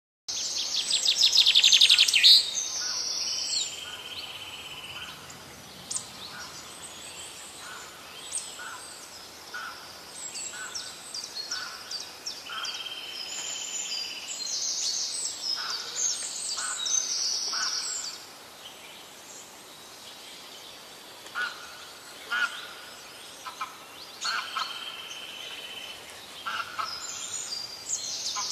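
Birds calling and chirping, with many short high notes, trills and glides. It opens with a loud rapid trill in the first couple of seconds, and a series of shorter, lower notes repeats throughout.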